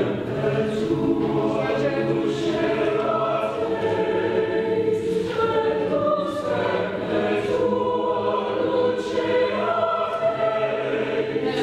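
A choir of mixed men's and women's voices singing together in long held chords.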